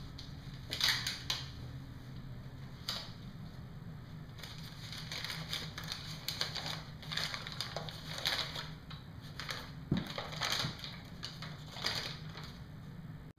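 A crumpled sheet of paper being pulled open and unfolded by hand, crinkling and crackling in short irregular bursts.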